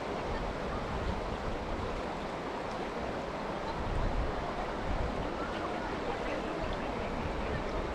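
Steady rushing of the Teesta River's fast-flowing water, an even noise without breaks.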